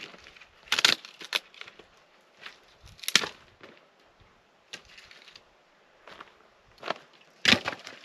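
Dry dead wood cracking and snapping as branches are broken up by hand and foot, in several sharp crackling bursts. The loudest come about a second in, about three seconds in and near the end.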